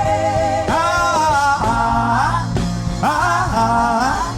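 Wordless worship music: a melody sung without words, in long gliding phrases, over a steady band accompaniment.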